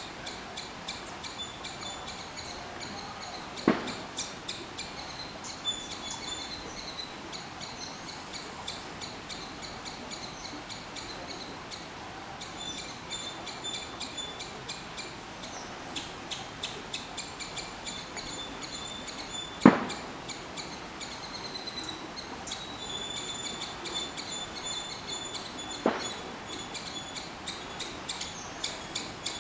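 Three-striped palm squirrel calling: a long, steady run of short, high-pitched chips repeated over and over, with three louder sharp clicks standing out along the way.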